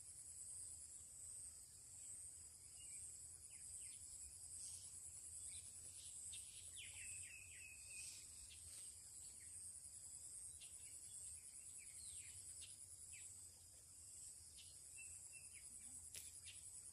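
Faint outdoor ambience: a steady high-pitched insect drone with scattered short bird chirps, a cluster of them about seven seconds in.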